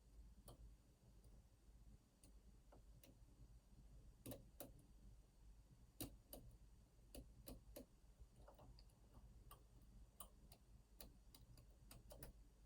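Faint, irregular metallic clicks of a lock pick and tension tool working the pins of an Opnus TEX lock during picking.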